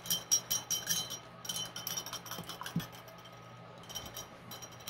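Paintbrush rattling against a glass rinse jar: quick runs of light, ringing clinks, three times.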